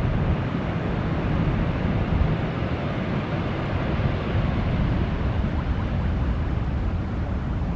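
Boeing 777's twin jet engines giving a steady deep rumble as the airliner rolls along a wet runway, throwing up spray.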